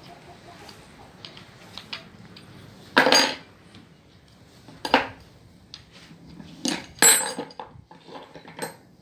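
Hard metal objects clinking and clattering as they are handled: a handful of sharp clinks, with the loudest about three seconds in and about seven seconds in, and light clicks and taps between them.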